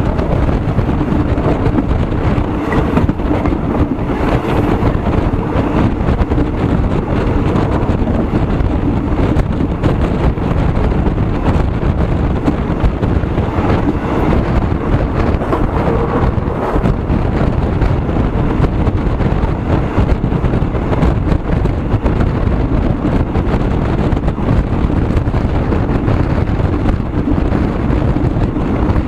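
Steady wind rumble on the microphone over the continuous drone of a moving vehicle, with a faint steady hum.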